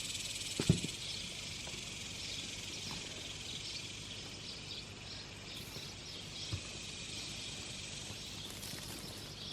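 Evening insect chorus: a steady high chirring with small repeated chirps running through it. There is a single short knock about a second in.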